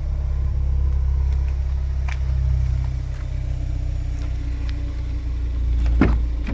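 Ford Fiesta ST180's engine idling with a steady low hum. There is a sharp knock about six seconds in.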